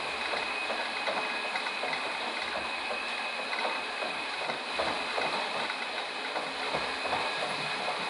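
Metal lathe running, a steady high whine over a continuous crackle of small clicks and rattles.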